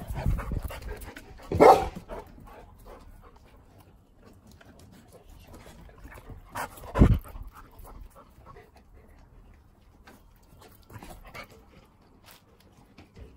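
A golden retriever's noises close to the microphone, with two louder short bursts about two and seven seconds in, then quieter.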